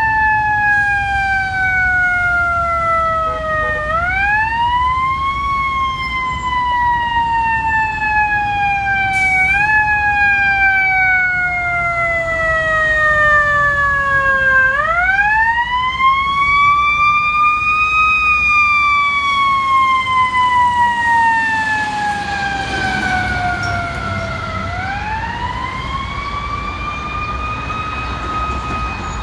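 A fire truck's siren winding up quickly, then slowly coasting down in pitch, and brought up again four times. The slow wind-down is typical of a mechanical siren such as a Federal Q. Under it is a low rumble of engine and traffic.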